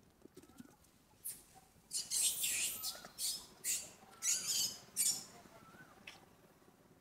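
A run of short rustling, scuffing bursts, six or seven over about four seconds, as a monkey moves past close by. A bird chirps faintly about once a second in the background.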